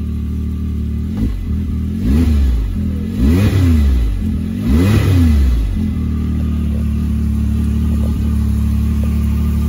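Can-Am Maverick X3 Turbo RR's turbocharged three-cylinder engine idling in park, then revved in four short blips that each rise and fall, the last two the highest and loudest, before it settles back to a steady idle about six seconds in.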